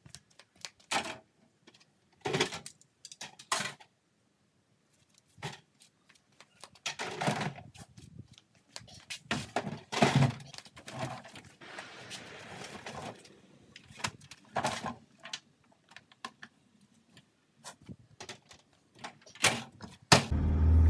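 Irregular knocks, thuds and light rattles, with a stretch of soft hiss about halfway through.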